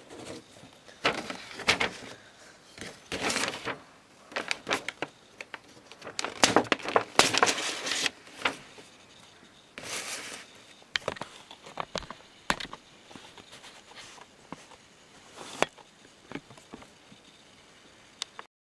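Handling noise: sharp clicks of plastic Lego parts and bursts of rustling as a white paper bag is moved about, the loudest rustling about six to eight seconds in and again at ten seconds. It cuts off abruptly near the end.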